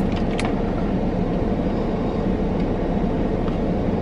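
Steady low rumble of a car running while parked, heard from inside the cabin, with a faint tick about half a second in.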